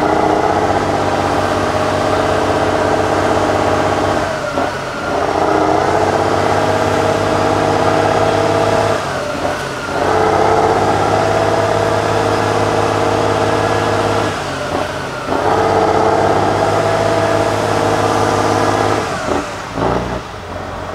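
Tatra 8x8 truck's air-cooled diesel engine working hard under load as the truck pushes through deep mud. The revs hold high and steady in stretches of about four to five seconds, dropping briefly four times.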